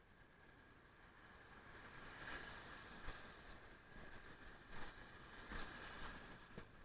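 Faint steady hiss with a handful of soft knocks spread through it, about five in all.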